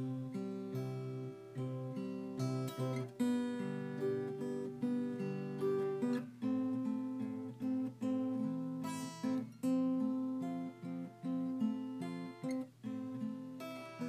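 Background music: acoustic guitar strummed and picked, the chords changing in a steady rhythm.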